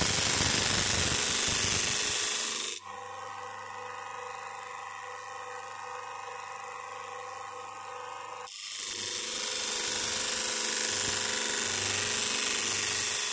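Bench grinder running while a cleaver's edge is held against its paste-charged felt wheel, making a steady abrasive hiss. After about three seconds the blade comes off and only the motor's hum remains. About halfway through the blade goes back on for a second pass that lasts to near the end.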